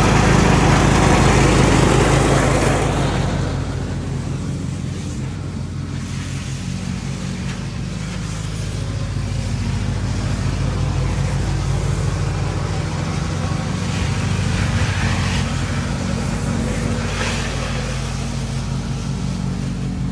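Lawnmower engine running steadily, louder for the first few seconds and then settling to a lower, even level.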